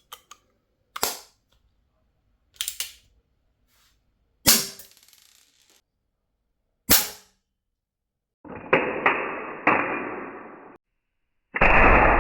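Colt Peacemaker CO2 air revolver firing steel BBs: four sharp single shots, a couple of seconds apart. Near the end comes a duller, muffled stretch with a few more quick hits.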